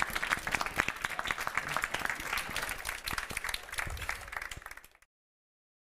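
Audience applauding with dense, steady clapping that fades a little and then cuts off abruptly about five seconds in.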